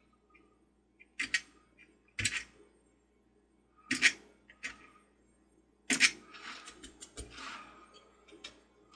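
Razor knife scraping hardened glue off porcelain in short strokes: four sharp scrapes a second or two apart, then a run of lighter, quicker scratches near the end.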